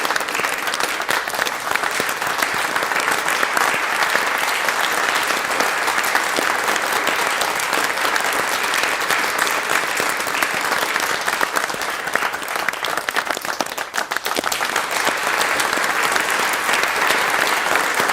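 A crowd applauding: dense, steady clapping of many hands, thinning briefly about three-quarters of the way through before filling in again.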